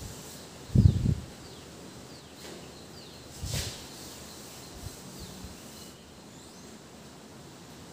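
Chalk knocking and scraping on a blackboard, with a few solid knocks about a second in and a short scrape a few seconds later. Faint short bird chirps repeat in the background.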